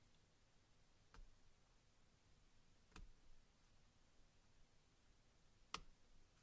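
Near silence broken by three faint, sharp clicks: one about a second in, one about three seconds in and one near the end, the last the loudest. They come from the plastic clips of a Microsoft Lumia 435's main antenna snapping free as a plastic pry tool levers them.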